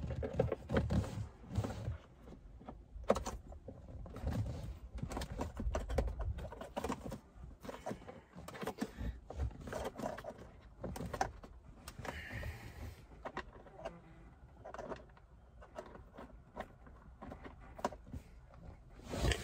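Irregular clicks, knocks and light rattles of hands and a small tool working on plastic and metal parts behind a VW Transporter T5's glovebox, fitting a new heater blower resistor and its small bolt.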